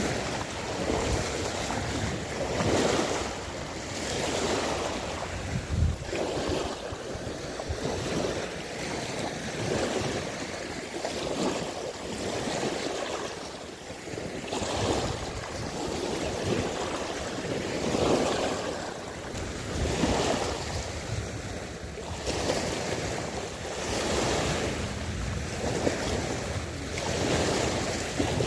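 Sea water washing and wind buffeting the microphone, swelling and easing in uneven surges every few seconds.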